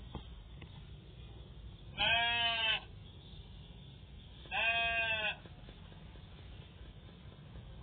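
Sheep bleating twice, two calls each just under a second long, about two and a half seconds apart.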